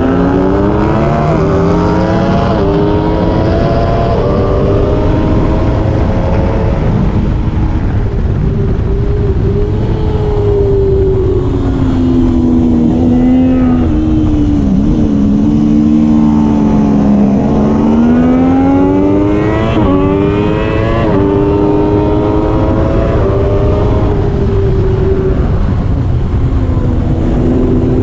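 Triumph Daytona 675R's inline three-cylinder engine at full racing effort: pitch climbing in steps through upshifts over the first few seconds, then falling through downshifts from about ten seconds in to eighteen, climbing again through quick upshifts, and dipping briefly near the end before rising once more. A steady rushing noise runs underneath.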